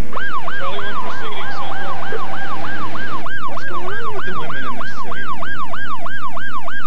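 Police siren in yelp mode: a fast rising-and-falling wail that repeats about three times a second.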